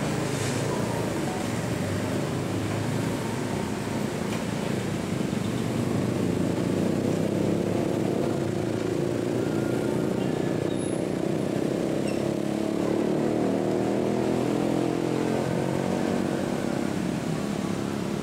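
Diesel engines of a convoy of rail track maintenance machines running steadily as the machines roll along the track, a little louder from about six seconds in.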